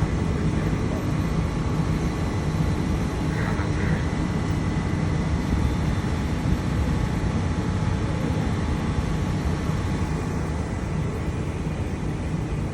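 Large central air-conditioning compressor running: a steady low mechanical hum with faint high whining tones. One high whine drops out about ten seconds in.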